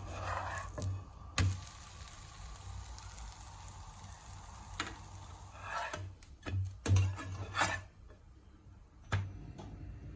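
Kitchen utensils knocking and scraping: a scattering of sharp knocks, clustered about two-thirds of the way through, with short scrapes among them over a faint steady hiss.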